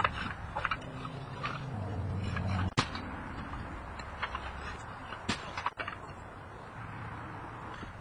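Roof slates clicking and knocking as they are prised off and handled, in choppy fragments with abrupt cuts. A low hum comes in for about a second, a couple of seconds in, and stops with a sharp knock.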